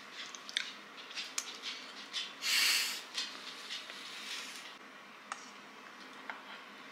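Close-up eating sounds: scattered light clicks of a fork and a plate, and chewing of a hard chocolate cake decoration, with a short loud rush of noise about two and a half seconds in.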